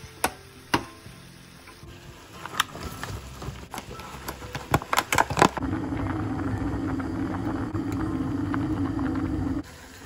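Crinkling and sharp clicks from a plastic clamshell container being handled and opened. From about six seconds in, a pot of pasta boils hard with a steady, bubbling rumble, the loudest sound, which cuts off abruptly near the end.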